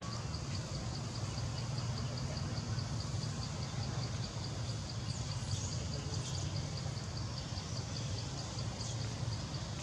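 Outdoor ambience: a steady low rumble with a faint, high, even chirping about four times a second, and a few brief chirps about halfway through.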